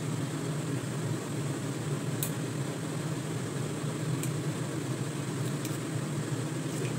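A steady low mechanical hum, like a fan running, with a few light ticks from a knife cutting vegetables on a cutting board.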